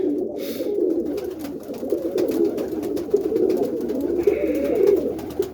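A loftful of roller pigeons cooing together, a continuous overlapping warble, with a brief higher hiss near the end.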